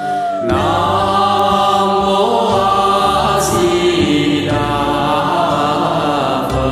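Buddhist chanting: voices holding long, drawn-out notes that bend in pitch, with musical accompaniment underneath.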